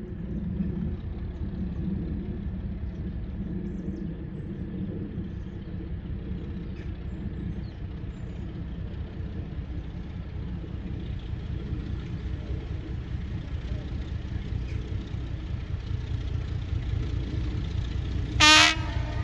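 A diesel locomotive's approach gives a steady low rumble that grows slowly louder. Near the end the locomotive sounds its horn in one short, loud blast.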